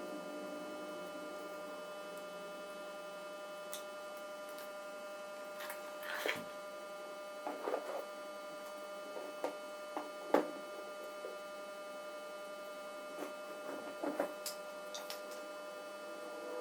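A steady electrical hum of several held tones, with a scattering of light clicks and knocks from about a third of the way in.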